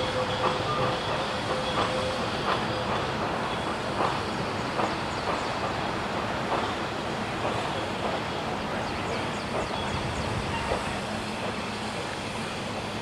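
LNER Class D49 4-4-0 steam locomotive No. 62712 'Morayshire' rolling slowly into the platform, its wheels clicking irregularly over rail joints and pointwork, the clicks thinning out near the end as it slows.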